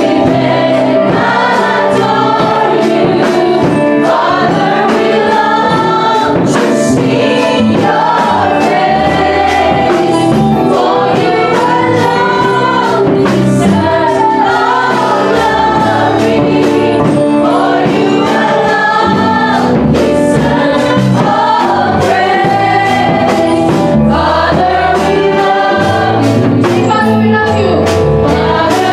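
Women's voices singing a gospel worship song into handheld microphones over amplified backing music with a steady beat.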